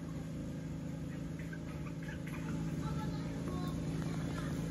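Steady engine hum, like a motor running at idle, with a few faint high chirps over it.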